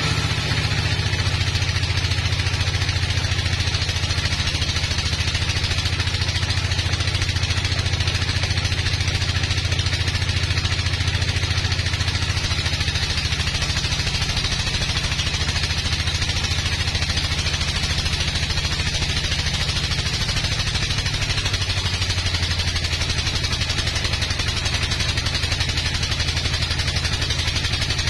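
Engine-driven band sawmill running under load as its blade cuts lengthwise through a large hardwood log: a steady engine drone with a high hiss of the saw cutting. The engine's pitch sags slightly about three quarters of the way through.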